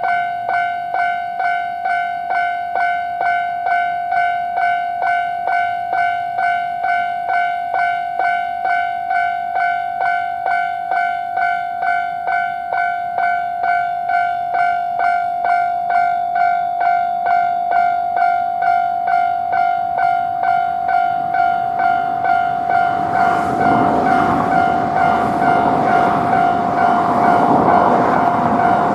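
Japanese railway level-crossing alarm ringing its steady, evenly repeated electronic "kan-kan" strikes on one bright tone. About three-quarters of the way in, a train approaches and passes the crossing, its rumble and wheel clatter rising under the bell.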